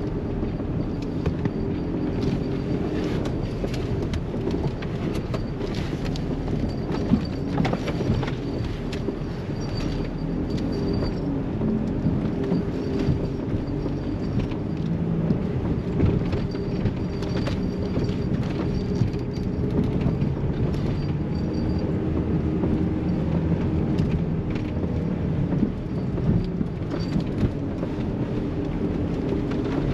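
Cabin sound of a 2011 Volkswagen Sharan with a 2.0 diesel engine, driven slowly over a rough, potholed road as a suspension test: the engine runs steadily under a rumble of tyres and suspension. Many short knocks come through as the wheels hit the bumps.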